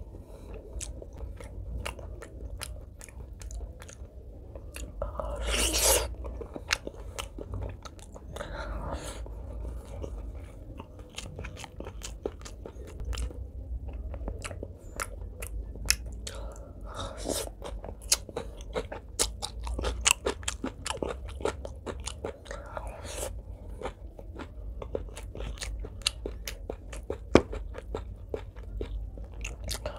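Close-miked eating: a person chewing and biting mouthfuls of pork leg curry with rice, with many sharp, wet mouth clicks and smacks. There are a few longer, louder bursts of chewing or crunching, the loudest about six seconds in.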